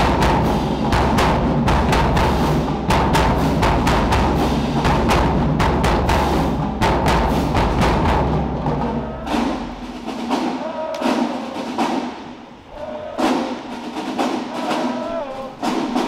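Marching band drumline playing a cadence: steady, regular drum hits over a deep bass drum. About nine or ten seconds in, the bass drops away, leaving sparser drum hits with voices calling over them.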